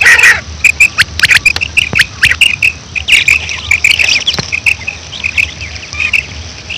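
Female quail calling: a rapid run of short, high chirping notes and clicks, many overlapping, thinning out after about four seconds.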